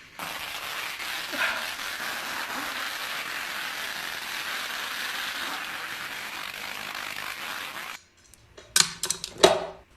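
Dense, steady crackling of masses of bubble-wrap bubbles popping at once, which cuts off abruptly about eight seconds in; then a few sharp clicks and clinks.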